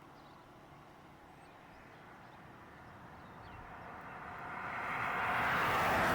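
A passing vehicle's rushing noise swells from about three seconds in and peaks near the end.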